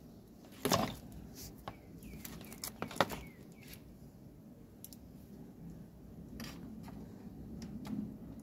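Hands handling tools and plastic parts on a workbench: scattered small clicks and taps, a louder scrape just under a second in and a sharp click about three seconds in.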